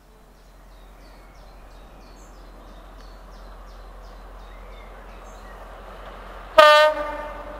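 A Class 35 Hymek diesel-hydraulic locomotive approaches, its sound growing slowly louder, with birds chirping in the first few seconds. About six and a half seconds in it gives one short, loud blast on its horn.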